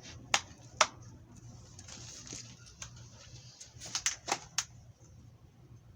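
Objects being handled and set down: two sharp clicks near the start, a soft rustle around two seconds in, and a quick run of four clicks around four seconds in.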